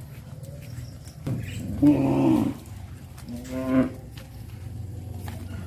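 Cows mooing: a long moo starting a little over a second in, then a second shorter moo about three and a half seconds in.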